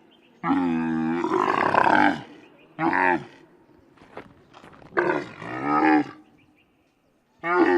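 Camel calling in a series of separate pitched calls: a long, drawn-out call of nearly two seconds, a short one, another of about a second, and the start of another near the end.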